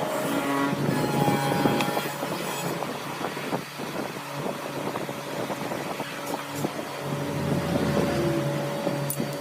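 A motor running steadily with an even low hum, with some grinding noise over it.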